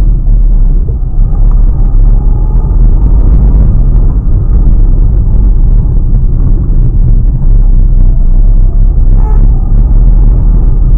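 Steady low rumble of a Renault Kwid 0.8's three-cylinder engine and tyres heard from inside the cabin while driving. There is a short higher tone about nine seconds in.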